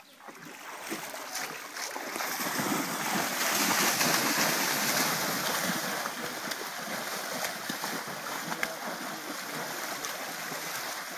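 Water churning and splashing as young tigers wrestle and thrash about in a shallow pool; the splashing builds up over the first few seconds, is loudest around four seconds in, then carries on steadily.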